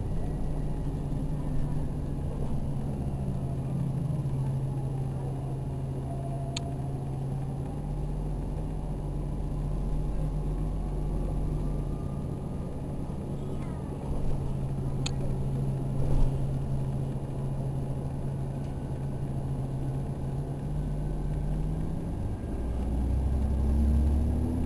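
Onboard sound of an Orion VII NG hybrid bus in motion: a steady low drivetrain hum and road rumble. Over it the electric drive's whine slides down and then climbs again as the bus slows and picks up speed. Two sharp ticks stand out along the way.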